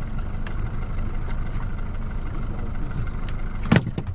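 Fishing boat's engine running steadily as a low rumble, with one sharp knock near the end.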